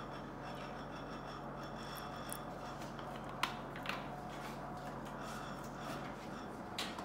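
Quiet kitchen room hum with a few faint clicks and knocks from things being handled.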